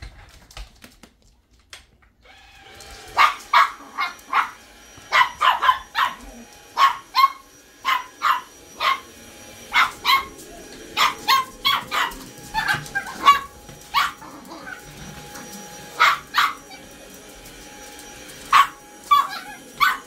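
A small dog barking over and over, often in quick pairs, at a cordless stick vacuum cleaner. The vacuum's motor starts about two seconds in and hums steadily under the barks.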